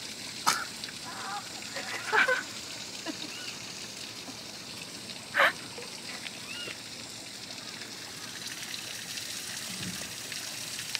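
A few short, sharp animal calls, the loudest about half a second, two seconds and five and a half seconds in, with fainter short chirping calls between, over a steady outdoor hiss.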